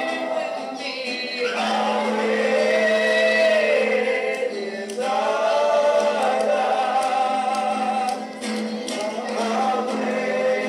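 Several men singing a gospel song together in harmony, in long held phrases, with an acoustic guitar accompanying.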